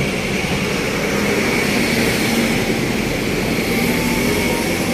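Steady motor-vehicle noise: an even, constant rush with a faint low hum underneath.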